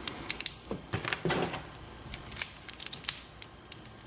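Master No. 540 dimple padlock being handled and locked back up: a run of small metal clicks and short rattles, with a longer rattle about a second in.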